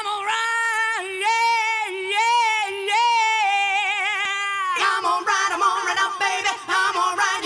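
A high singing voice holding long notes with vibrato, then moving to quicker, shorter notes about five seconds in.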